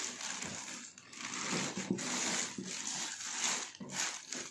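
Plastic wrapping on a cooker hood crinkling and rustling in an irregular string of rustles as the hood is handled and lifted out of its cardboard box.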